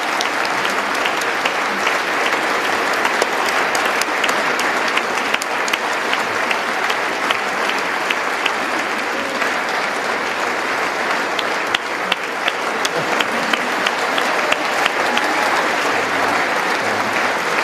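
A large audience applauding steadily, a dense wash of clapping with sharper single claps standing out, sustained without a break.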